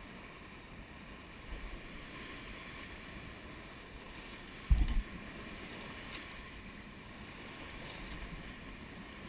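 Water rushing and spraying along the hull of a sailing yacht running fast under spinnaker, a steady wash of bow wave and wind. A loud, low thump about five seconds in.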